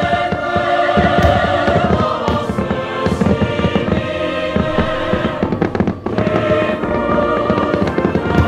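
Fireworks going off in a rapid string of bangs and crackles, over music playing.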